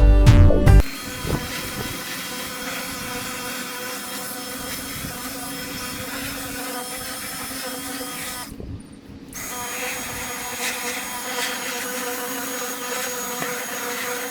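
Music cuts off under a second in, then a small electric motor runs steadily with a whine of several fixed tones. It drops out briefly about eight and a half seconds in, then resumes.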